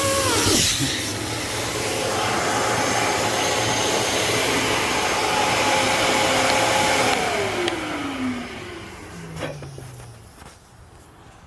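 Electric blower motor running with a steady whine and rushing air. About seven seconds in it switches off and winds down, its whine falling in pitch as it fades.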